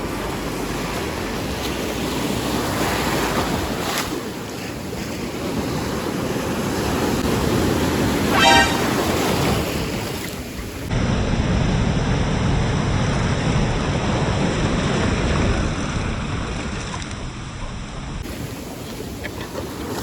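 Sea waves washing onto the shore, with wind buffeting the microphone. A short pitched call or toot sounds about eight seconds in.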